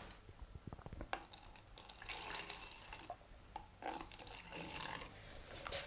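Clear liquid being poured from a cup into plastic mixing cups: a faint trickle in a couple of short pours, with a few light clicks of plastic.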